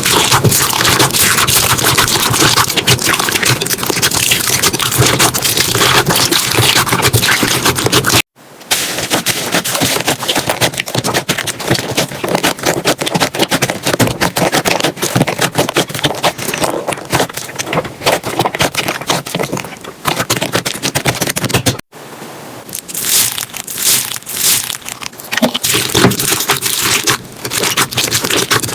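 Slime being squished and pressed by hand: a loud, dense run of crackling and popping clicks. It cuts off abruptly and starts again about 8 seconds in and again about 22 seconds in.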